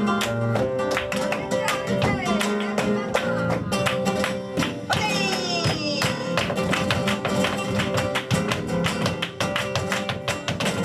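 Flamenco guitar playing in the tangos rhythm, with dense, fast, sharp percussive strikes throughout.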